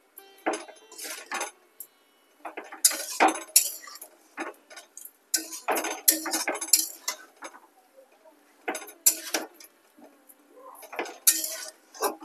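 Steel spatula scraping and clinking against a metal kadai while pumpkin stems and potatoes are stirred and tossed with the freshly added spice paste and turmeric, in irregular strokes with short pauses.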